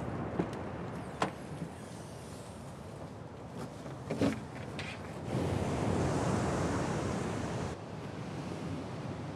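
Steady outdoor background rush with a few sharp clicks and knocks from belongings being handled in a car boot. A louder hiss swells about five seconds in and cuts off suddenly near the end.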